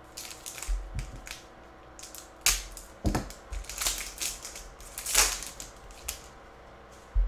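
Foil wrapper of a trading-card pack being opened and crinkled in the hands, in irregular crackling rustles, with a low thump near the end.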